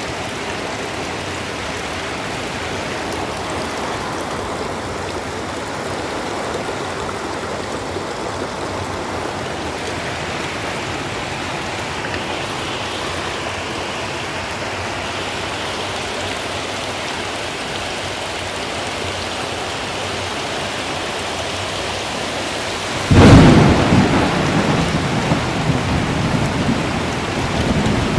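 Steady downpour of heavy rain, with a sudden loud clap of thunder near the end that rumbles away over several seconds.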